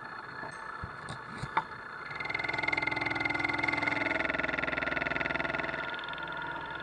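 Machine tool running steadily, with a sharp click about a second and a half in. From about two seconds in, a louder steady metal-cutting sound rises over the hum for about four seconds, then eases off.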